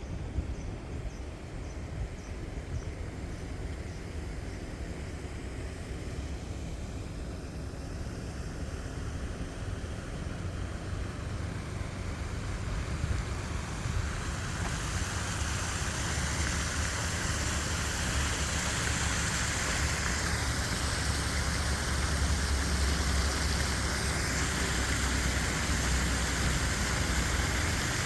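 Stormwater pouring from a drain outlet into a creek, a steady rush that swells about halfway through and becomes the main sound. Under it runs a constant low rumble of freeway traffic.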